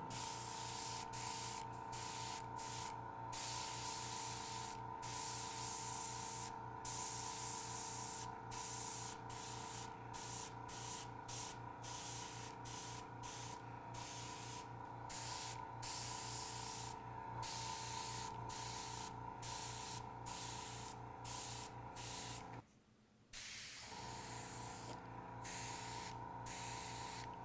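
Airbrush spraying paint in short strokes: its air hiss starts and stops again and again as the trigger is pressed and released, over the steady hum of a small airbrush compressor running. All sound drops out for a moment about three-quarters of the way through.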